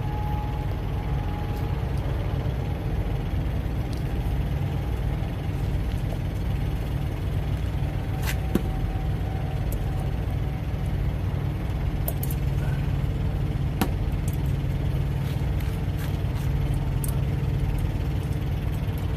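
Steady low rumble of an idling heavy diesel truck engine. A few short sharp clicks of metal hooks come over it as a rubber spider bungee is unhooked from a tire chain.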